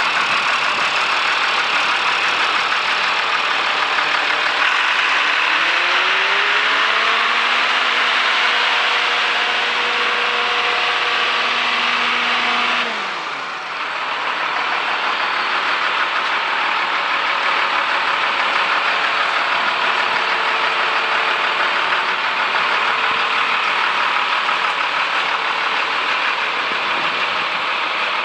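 Terex SP2010 vibratory roller's diesel engine running steadily, heard up close. About five seconds in, a tone rises over a couple of seconds, holds steady, and cuts off about thirteen seconds in, with a short dip in loudness.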